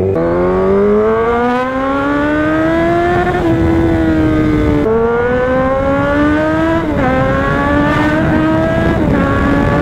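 Kawasaki inline-four superbike engine accelerating through the gears: the revs climb steadily, then drop at each of four upshifts, a second and a half to two seconds apart.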